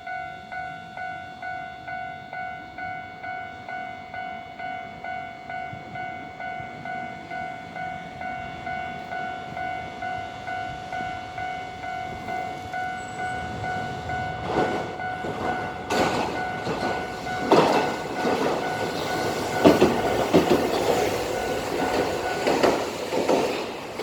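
Japanese level-crossing warning bell ringing at a steady pace, about three strokes every two seconds, while a Hankai tram approaches and crosses, its wheels clanking loudly over the rail joints in the second half; the bell stops shortly before the end.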